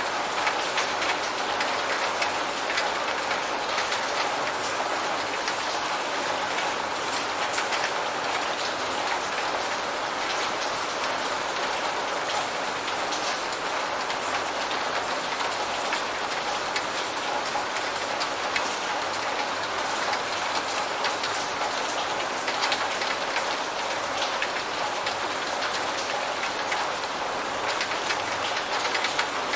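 Steady rain: an even hiss of many falling drops, with countless small drop ticks throughout.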